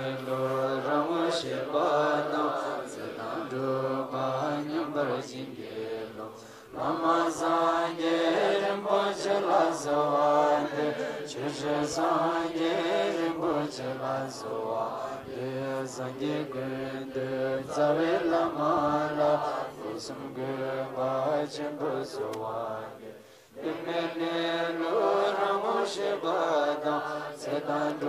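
Buddhist mantra chanting: voices repeating the same melodic phrase over and over above a steady low undertone, with brief pauses about seven and twenty-three seconds in.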